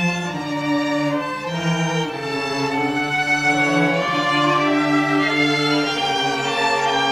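High school string orchestra playing, violins and cellos bowing long held notes, the chord shifting every second or two.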